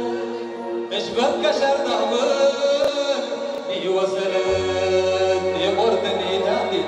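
A man singing through a microphone and PA in long held, chant-like lines, backed by an electronic keyboard. A low bass note drops out about a second in and comes back about four and a half seconds in.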